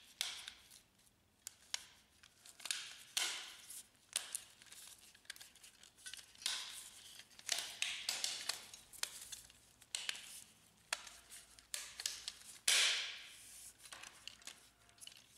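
Handling noise of a plastic laser-printer fuser unit turned over in gloved hands: scattered light clicks, taps and rubbing of the plastic housing, with one longer, louder scrape near the end.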